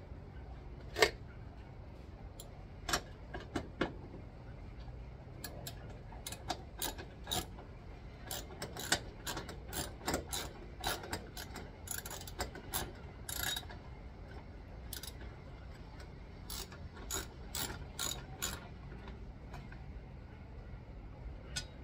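Hand tools and metal parts clicking and clinking irregularly while a small metal wiring plate is fastened on a car, with short runs of ratchet-like clicking. One loud click comes about a second in, and the clicks come thickest in the middle.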